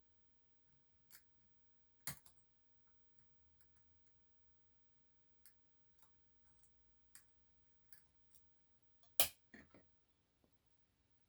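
Faint, scattered metallic clicks and ticks of lock-picking tools working the pins of a dimple lock cylinder, with two sharper clicks, one about two seconds in and one near the end.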